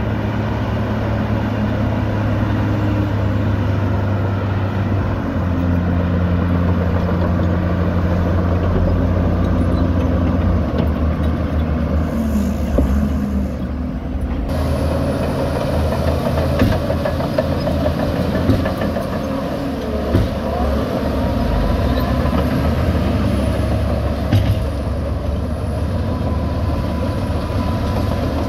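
Heavy diesel engines of earthmoving machines running and changing speed: first a Sumitomo excavator loading a dump truck, then, after an abrupt change about halfway, a Shantui DH17 bulldozer pushing soil with a Shacman dump truck unloading, with a few short knocks.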